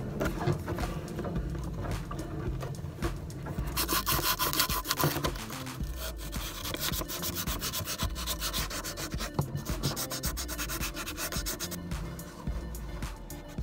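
Abrasive strip pulled back and forth around a pipe fitting, a continuous rapid rubbing and scraping to clean the bonding connection. The rubbing is harshest about four seconds in.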